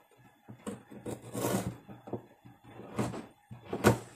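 Kitchen knife slicing galangal thinly on a plastic chopping board: about six separate cutting knocks at uneven intervals, the loudest near the end.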